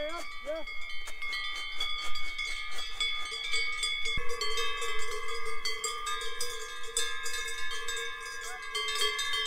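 Cowbells worn by a herd of heifers clanking and ringing as the animals walk, several bells of different pitches sounding together in an irregular jangle.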